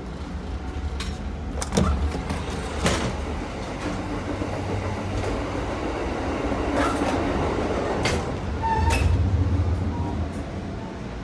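Amtrak Downeaster passenger coach running at speed, heard from the vestibule between cars: a steady rumble and rattle of the running gear. It is broken by several sharp clunks and clicks from the end doors and gangway, and the rumble is loudest about nine seconds in.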